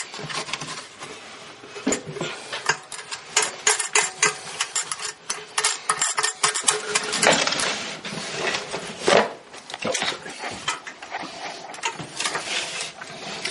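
Irregular metallic clicks, clinks and scraping as a washer and nut are fitted onto a toilet's closet bolt and snugged down to hold the bowl to the floor.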